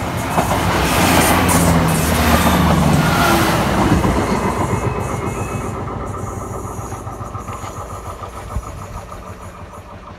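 Great Western Railway Class 166 diesel multiple unit passing close at speed: the engines and the wheels on the rails swell to a peak in the first few seconds, then fade as it draws away. The level crossing's warbling warning alarm sounds under it and stops about six seconds in, as the light turns green.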